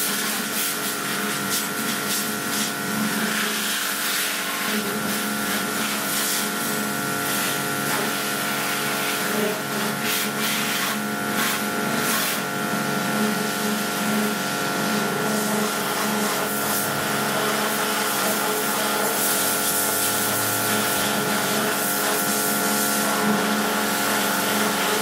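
Steam pressure washer running steadily, its jet hissing as it sprays a motorcycle's frame and engine, with the machine's steady hum beneath.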